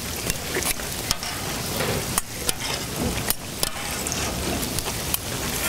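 Hotteok frying in shallow oil on a flat griddle, sizzling steadily, with scattered sharp clicks of metal tongs as the pancakes are turned and pressed.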